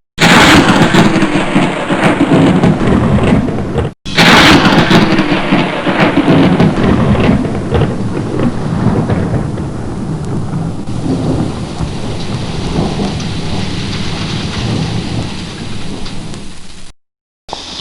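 Thunderstorm: loud rolling thunder over rain, cut off briefly about four seconds in, then a sudden thunderclap that rumbles and fades into steady rain.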